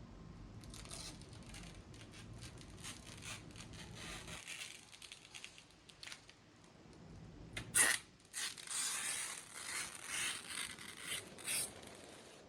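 Hands handling PC parts and their packaging: crinkling, rustling and scraping, with a sharp click about eight seconds in, followed by louder rustling bursts.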